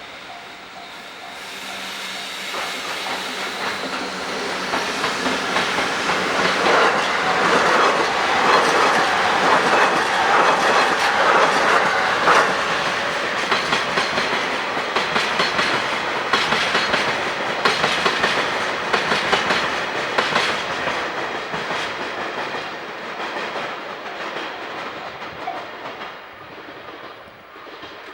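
Train passing close on the line, wheels clicking and clacking over the rail joints. It builds over the first several seconds, stays loud for about fifteen seconds, then fades away near the end.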